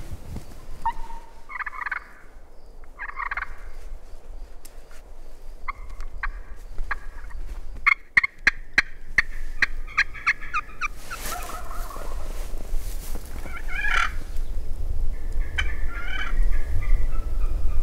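Wild Merriam's turkey gobblers gobbling several times. About six seconds in comes a fast run of sharp, scratchy hen calls worked on a hand-held box call, and more gobbles answer it.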